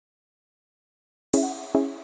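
Dead silence for just over a second, then background music starts with two struck keyboard chords, each ringing and fading.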